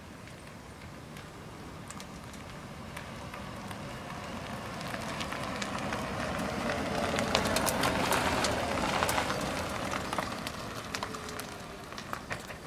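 Tyres of an electric-converted 1990 Mazda Miata rolling over a rough, gritty paved drive, with crackling grit and no engine sound. The tyre noise swells as the car comes close, loudest about seven to nine seconds in, then fades as it pulls away.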